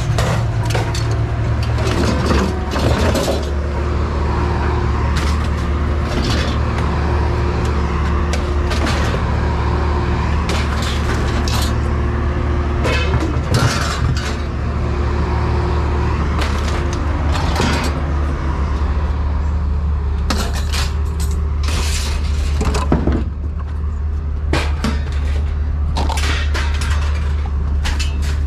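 Scrap junk being thrown off a truck at a scrapyard: irregular metal clanks and clatters over a steady engine running.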